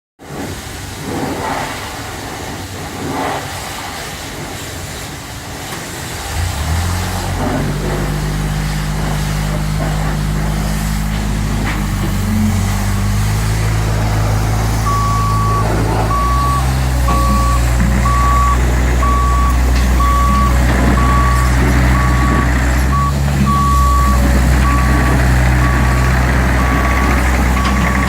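Diesel engine of a JCB 8050 RTS mini excavator starting about a quarter of the way in and then running, its pitch stepping up and down as it is worked. From about halfway in, a travel alarm beeps about once a second.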